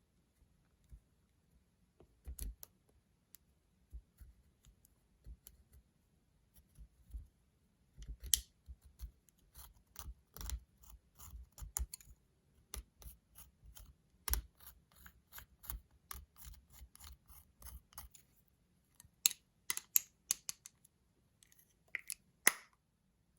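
Slime being worked by hand, giving irregular sharp clicks and pops that come in clusters, thickest through the middle of the stretch and again near the end.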